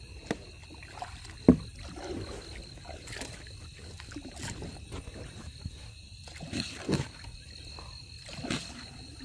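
Scattered knocks and bumps of gear being handled in a small boat, the sharpest about a second and a half in. Under them runs a steady high trilling of night insects, likely crickets.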